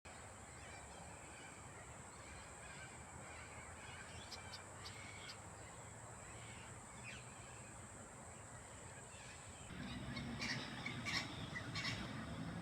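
Birds calling outdoors: faint short scattered calls, louder and closer from about ten seconds in. A steady high whine in the background stops at that point.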